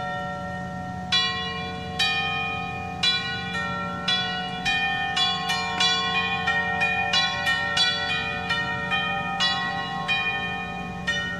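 Bells ringing a slow melody: single struck notes, one every half second to a second, each ringing on and fading as the next comes in.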